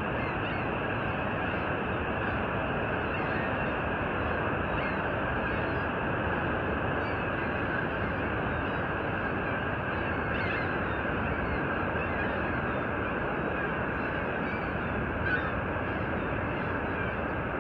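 Steady rush of Niagara Falls' water pouring into the gorge, a constant, even noise. Faint, scattered bird calls sound now and then over it.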